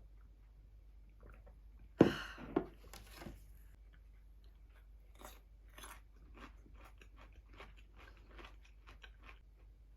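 A person biting into crunchy food close to the microphone: a loud crunch about two seconds in and another just after, then steady chewing with quick, quieter crunches, several a second.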